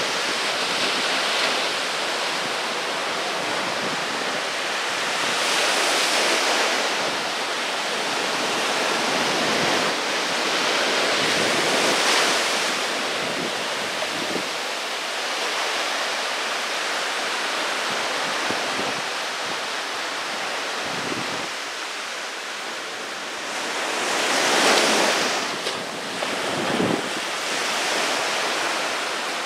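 Small waves breaking and washing up a sandy beach: a continuous surf hiss that swells each time a wave breaks, loudest near the end.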